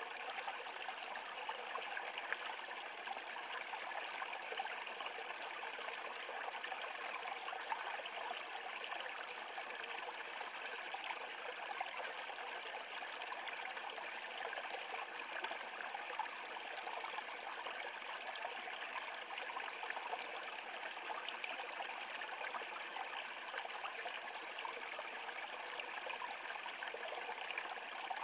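Small stream running over a low rocky step, a steady rush and trickle of water with little splashes.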